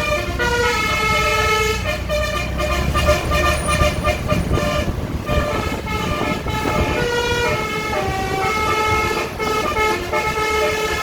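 Basuri-type telolet bus horn, a set of air horns, playing a melody of held notes that step from pitch to pitch. The bus's engine rumbles underneath, most strongly in the first few seconds.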